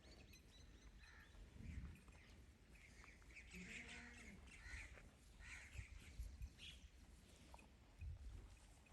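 Faint birds chirping and calling in the background, with a few low thumps.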